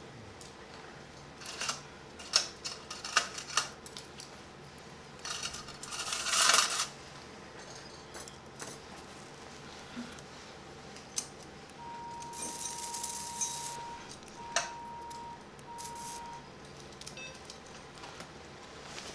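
Steel surgical instruments clicking and clinking as forceps and hemostats are handled, with a louder rustle about six seconds in. Near the middle, a steady electronic tone sounds for about two seconds, then twice more briefly.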